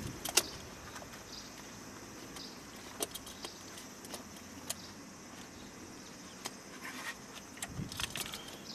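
Scattered light metallic clicks and clinks from hands working on parts in a car's engine bay: one sharp click about half a second in, a few single ticks after that, and a small cluster near the end.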